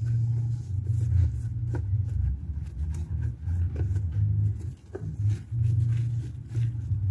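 A loud, uneven low rumble, with a few faint knocks and rubs as a rag wipes out the plastic air-filter housing of a Honda Dream 110 motorcycle.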